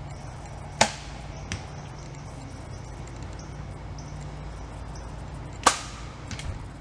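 Two compound bow shots, about five seconds apart, each a sudden sharp snap of the string on release. A lighter click follows the first, and a few light clicks follow the second.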